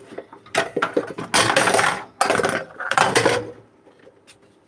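Metal pots and lids clattering as they are moved about in three or four loud bursts, as someone digs out the lid for a cooking pot.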